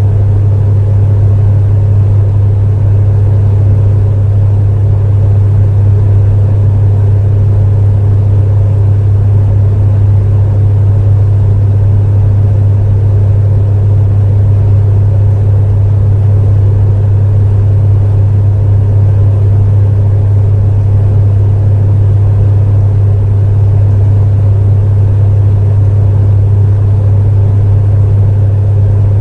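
Space heater running steadily: a loud, constant low hum with an even rushing noise above it.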